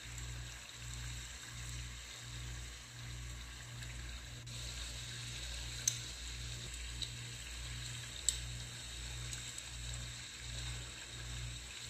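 Chicken and chopped tomatoes simmering over low heat in a wok, a steady sizzling hiss, with a few sharp clicks of a spatula against the pan around the middle. A low throb pulses about twice a second underneath.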